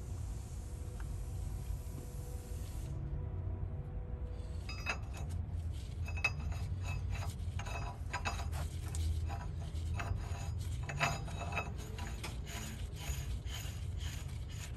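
A gloved hand rubbing and scraping inside a semi-truck wheel hub's metal bore, with many irregular small clicks and clinks starting about four and a half seconds in, over a low rumble. Before that comes a steady hiss lasting about three seconds.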